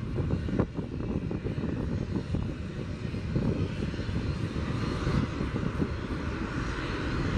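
Distant jet engine noise from a Boeing 737-700 Business Jet rolling out on the runway after landing, from its CFM56-7 turbofans: a low, uneven rumble, with a hiss that grows from about halfway through.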